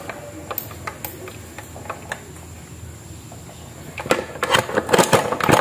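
White plastic wall-fan body knocking and scraping against the wall as it is hung back onto its two mounting screws: a few light clicks at first, then a rapid cluster of loud clattering knocks in the last second and a half.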